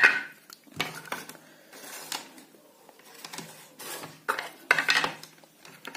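Black plastic casing of a TV power adapter being handled and fitted around its circuit board on a table: scattered plastic clicks and knocks, a sharp one at the start and a cluster about four to five seconds in.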